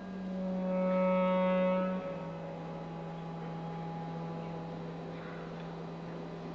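Live band holding long closing notes: a low sustained note with a higher note over it, the low note stepping down slightly about two seconds in and then held steady to the end of the song.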